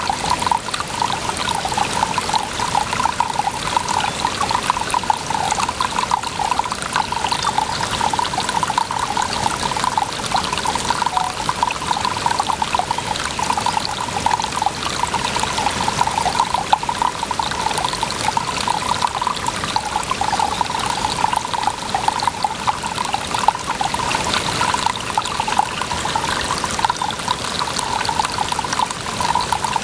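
Water pouring and trickling steadily, a continuous bubbling splash that holds the same level throughout.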